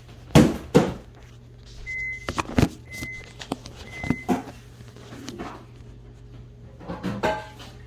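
Hard knocks and clunks, two loud ones in the first second and a few more later. Three short high electronic beeps sound about a second apart between them.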